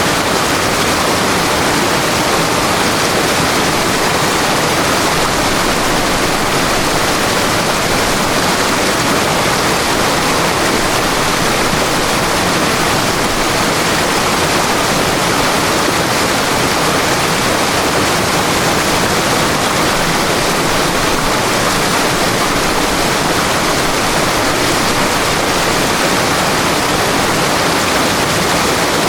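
River water rushing and splashing over rocks in a steady, unbroken flow.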